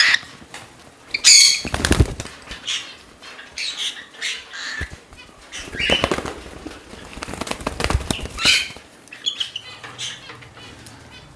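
A hand-tame pet parrot flapping its wings in short, irregular bursts, with a few faint high chirps, while being syringe-fed hand-feeding formula.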